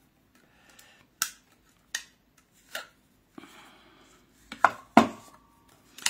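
A plastic craft paper punch and card being handled: a few light clicks spaced out, a soft paper rustle, then two sharper clacks about five seconds in as the punch is set down flat.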